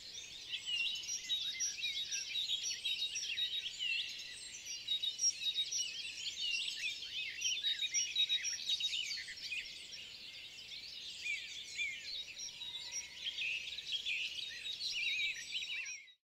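Many birds chirping and singing at once, a dense chorus of quick high chirps and trills, cutting off suddenly near the end.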